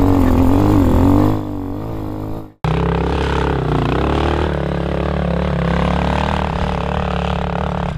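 Air-cooled RPS Hawk 250 dirt bike engine running under a rider off-road, its pitch rising and falling with the throttle. It cuts out suddenly about two and a half seconds in and comes straight back, steadier.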